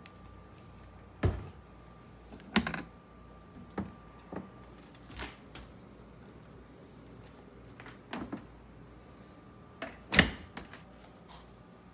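About a dozen scattered knocks and clunks, like hard objects being handled and set down, with the loudest about ten seconds in.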